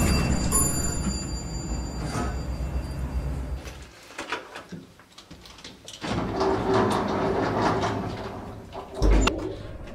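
Passenger lift: a low rumble, a few sharp clicks as its call buttons are pressed about four seconds in, then the car's sliding doors and machinery running, with a heavy thud near the end.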